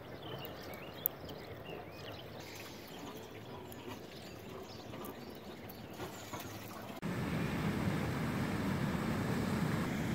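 Birds chirping over a faint outdoor background, with one sharp click about a second in. About seven seconds in, the sound jumps suddenly to a louder, steady low rushing noise.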